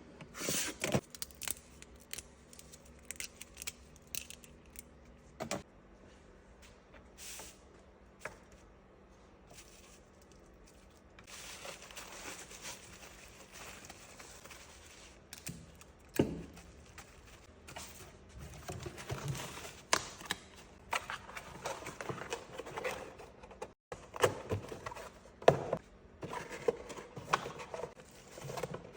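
Hands handling small parts: scattered clicks and taps with stretches of rustling and scraping.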